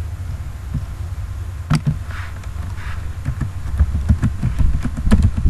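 Computer keyboard typing: a run of quick key taps from about three seconds in, after a single sharp click a little before two seconds, over a steady low hum.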